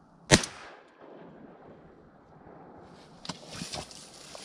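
A single shotgun shot about a third of a second in, sharp and loud with a short ring-out, from a Winchester SX4 semi-automatic shotgun fired at ducks. Lighter knocks and rustling follow from about three seconds in.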